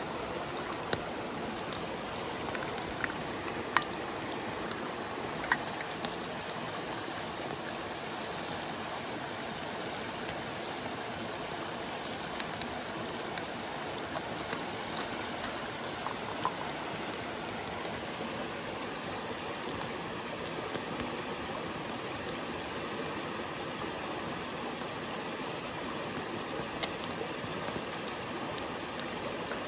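Mountain stream running with a steady rush of water, and a few sharp clicks scattered through it.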